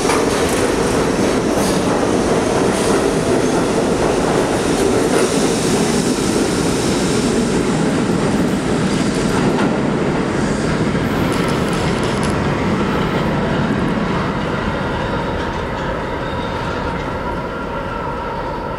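R32 subway train departing, its cars rolling past on the rails, then fading as it pulls away into the tunnel.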